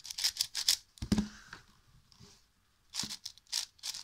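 Plastic layers of a new YJ MGC 6x6 magnetic speed cube being turned by hand: quick runs of clacking turns in three short spells, with a soft knock about a second in.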